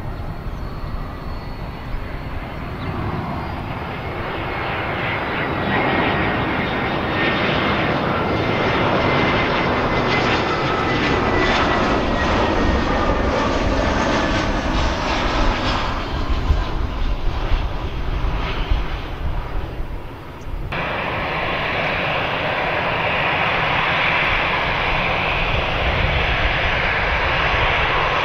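Airbus A320 jet engines: a descending airliner with gear down passes close by, its engine noise swelling, with a faint falling whine. After an abrupt cut about two-thirds of the way in, it gives way to the steadier run of A320 engines at low thrust while taxiing.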